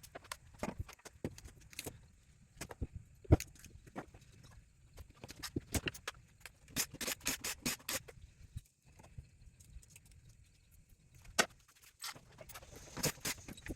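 Irregular metallic clicks, clinks and knocks of hand tools working on a pump motor's metal parts as it is taken apart for scrap. There is a sharp knock about three seconds in, a quick run of clicks around seven seconds and another strong knock near eleven seconds.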